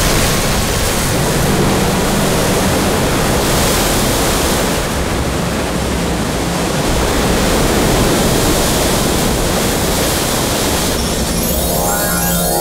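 Loud, steady rush of surging water: an animated sound effect of a river torrent pouring through dry hills. Near the end it thins as music with chiming tones comes in.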